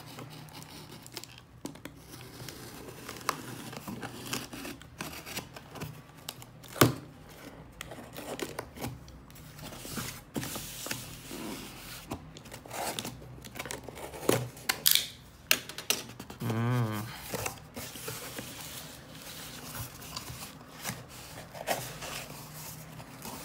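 Cardboard box being opened with a snap-off utility knife: the blade scraping and slitting packing tape, tape tearing, and cardboard flaps rustling as they are pulled open. Irregular scrapes with sharp clicks, the loudest about a third of the way through.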